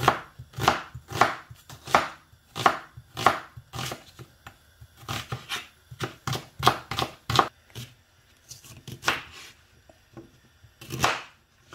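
Chef's knife slicing through an onion on a plastic chopping board: a sharp cut and knock against the board with each stroke, about two a second, then a few slower cuts into ginger root near the end.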